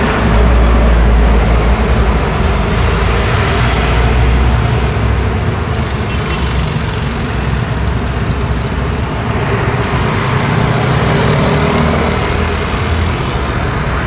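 Road traffic: cars and motor scooters passing on a wide street, a steady hum of engines and tyres. A heavier rumble comes in the first couple of seconds and swells again about ten seconds in as vehicles go by.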